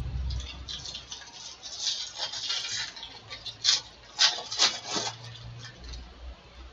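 Foil wrapper of a Bowman baseball card pack crinkling and tearing as it is opened by hand, in an irregular run of crackles with a few sharper rips about halfway through.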